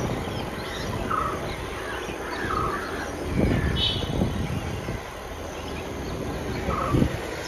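Crows cawing several times in short calls over the steady rumble of wind and tyres from a moving bicycle, with two short knocks, one about three and a half seconds in and one about seven seconds in.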